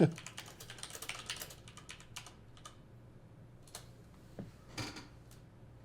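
Typing on a computer keyboard: a quick run of key clicks, then a few scattered keystrokes.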